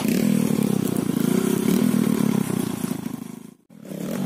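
Dirt bike engine revving up and down. The sound cuts out to silence for a moment about three and a half seconds in, then comes back.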